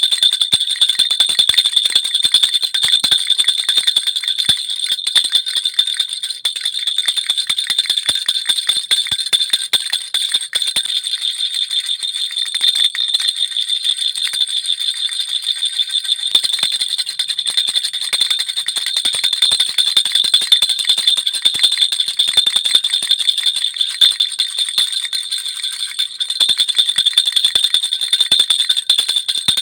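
Jhunjhuna baby rattle with small bells, shaken without pause: a dense, rapid jingling with a steady bright ringing, a little softer in the middle stretch.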